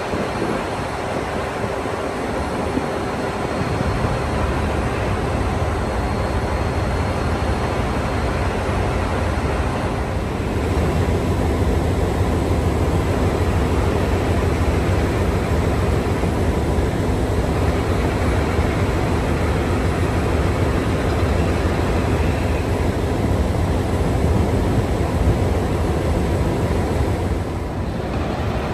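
Alco-built NSW 44 class diesel-electric locomotive 4464 running with a steady low engine drone, growing louder a few seconds in and again about ten seconds in.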